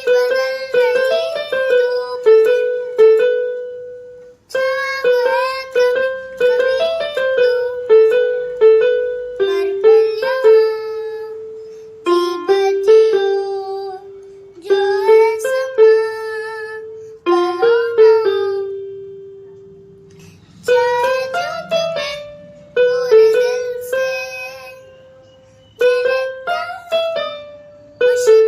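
Electronic keyboard playing a simple melody, note by note, in short phrases with brief pauses between them. Each note starts sharply and fades.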